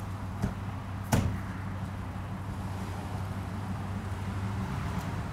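A steady low hum under outdoor background noise, with a faint click about half a second in and a sharper knock just after a second.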